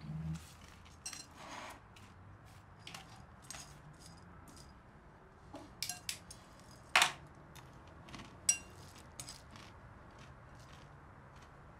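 A spoon clinking against a breakfast bowl during a meal of cereal, in irregular light clinks, the two loudest about seven seconds in and a second and a half later.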